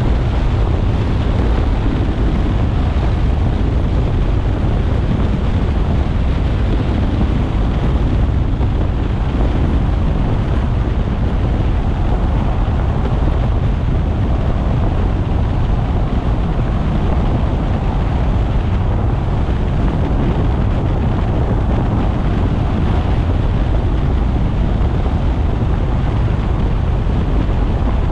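Road and wind noise of a car driving on a rain-wet expressway: a steady low rumble with a hiss of tyres on the wet surface.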